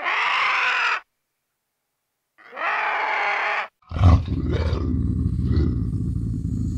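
Two separate animal calls, each about a second long and pitched, with dead silence between them, then a low continuous rumbling sound.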